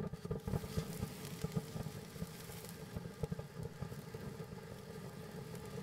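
World Class 'It's A Boy' firework fountain burning just after lighting. It gives a steady rushing hiss with many small pops and crackles, thickest in the first couple of seconds.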